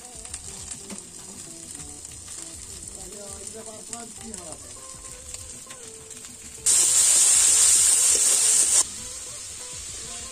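Food frying in hot oil in a wok, a low steady sizzle. About two-thirds of the way in, ingredients go into the hot oil and the sizzle turns suddenly loud for about two seconds, then drops back to the low sizzle.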